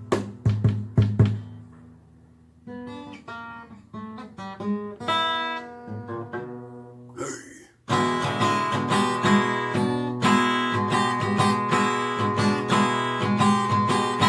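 Guitar played blues style: a few strummed chords, a pause of about a second, a run of single picked notes, then a short scrape and a quick drop-out before steady strumming starts again about eight seconds in.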